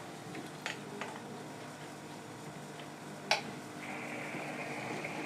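A few light clicks, the sharpest about three seconds in, then a steady hiss of running water that starts just after as the Sobo WP880F aquarium top filter's pump is switched on and begins circulating water.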